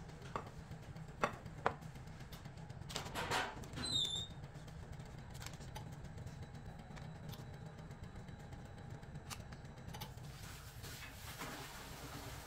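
Silicone spatula scraping brownie batter out of a glass bowl and spreading it in lined metal loaf pans: two light knocks early, a soft scraping patch with a short high squeak about four seconds in, then faint small clicks, over a steady low hum.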